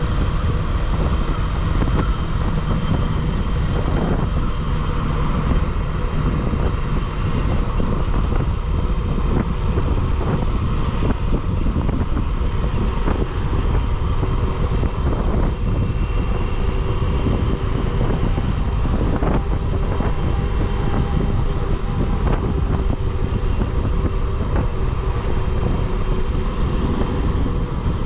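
Motorcycle riding at a steady speed: constant wind rush buffeting the microphone over the engine's running note.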